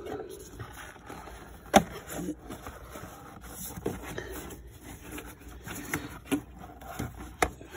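Scattered sharp clicks and knocks with light rubbing as parts are handled and fitted by hand in a 2012 GMC Acadia's engine bay; the sharpest click comes about two seconds in.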